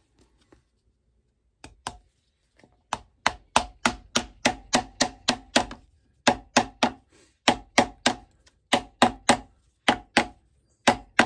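Hammer driving nails through a stacked leather heel base to fasten its layers together. A quick series of sharp blows, about three a second, in short runs with brief pauses, starting nearly two seconds in.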